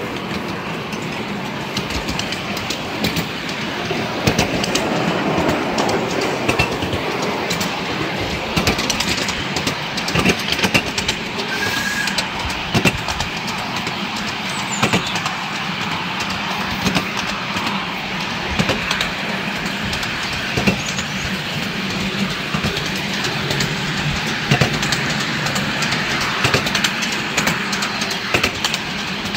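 Miniature ride-on steam railway train under way, heard from the riding cars: steady rolling noise of small wheels on the rails, with frequent irregular clicks as they cross rail joints.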